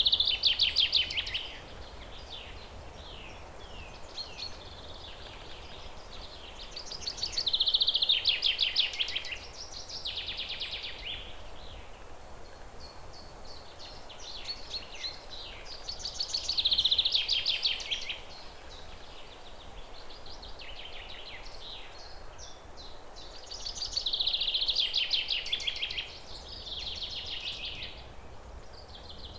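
A songbird singing a loud, fast trilled phrase of about two seconds, repeated about every eight seconds, with softer chirps between, over a steady faint low background noise.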